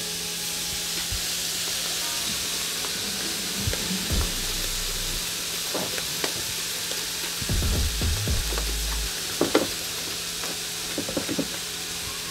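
Salmon steaks sizzling steadily on a hot stovetop griddle pan, with a few light clicks and knocks.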